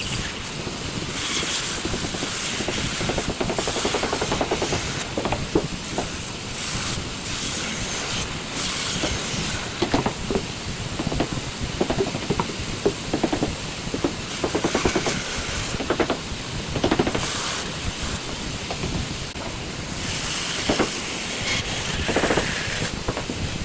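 A tool shaping wood: a continuous harsh grinding hiss with many irregular scraping strokes.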